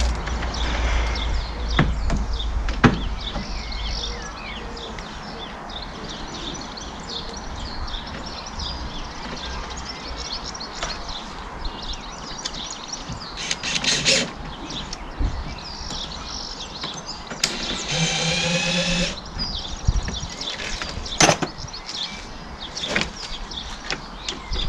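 Birds chirping throughout, with a few knocks and taps, and wind rumbling on the microphone at the start. About three-quarters through, a power drill-driver whirs steadily for about a second and a half, driving a screw into the wooden shed wall to hold the trellis mesh and batten.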